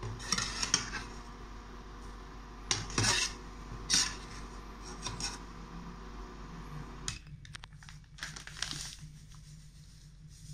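Stainless steel skimmer scraping and clinking against a metal frying pan as chilies are stirred, in several short sharp strokes over a steady hum that cuts off about seven seconds in.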